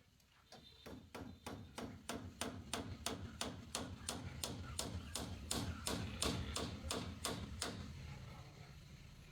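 A hand tool striking over and over at a steady pace, about three sharp blows a second, about twenty in all, stopping near the end.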